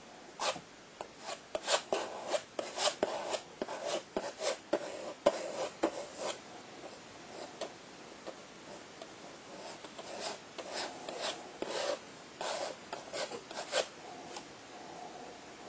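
Palette knife scraping and dabbing paint onto paper in short, irregular strokes, with a quieter lull in the middle.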